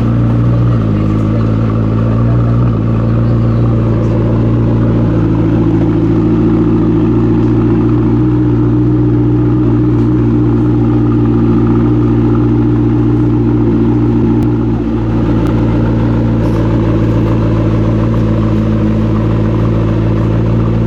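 McLaren P1's twin-turbo V8 idling steadily.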